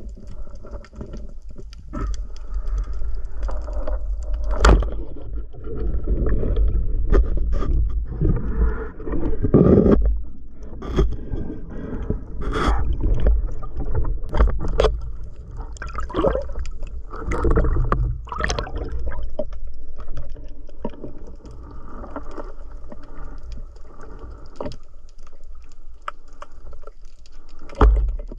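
Underwater sound picked up by a camera in its waterproof housing: a steady low rumble of water movement, with scattered sharp clicks and knocks, the loudest a few seconds in and near the end.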